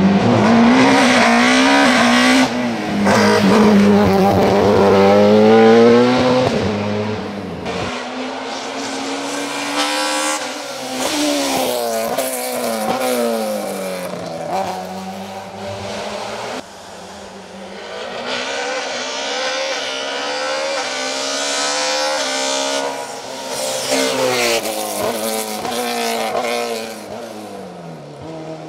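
BMW 320i STW (E36) race car's naturally aspirated 2-litre four-cylinder, breathing through individual throttle bodies, revving hard between corners. The pitch climbs in repeated runs and drops back on the brakes. It is loudest for the first eight seconds or so and fainter after.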